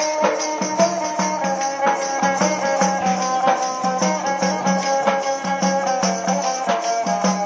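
Instrumental break of a Hindu devotional bhajan: a melody line played over a steady held drone, with a regular beat of rattling percussion.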